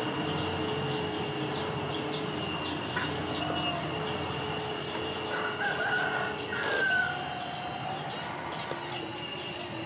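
A rooster crowing: one long drawn-out call about five seconds in that cuts off sharply, with another crow starting near the end. A steady high-pitched whine runs underneath.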